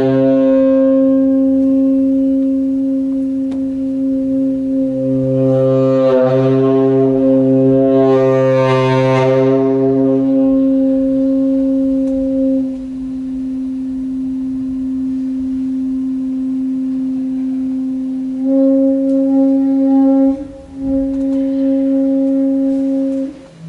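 Live experimental music: layered, sustained droning tones, deep and horn-like, held steady for many seconds. They grow brighter and buzzier in the middle, and a new pitch enters near the end.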